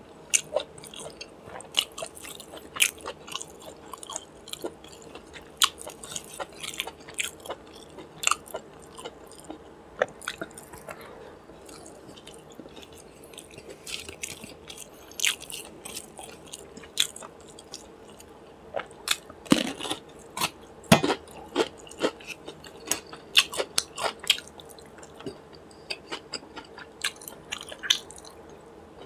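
Close-miked eating by hand: wet chewing, lip smacks and soft crunches of rice mixed with chicken liver and gizzard curry, with fingers squishing rice and curry together on a steel plate. Short clicky mouth sounds come in quick runs throughout and are busiest about two-thirds of the way through.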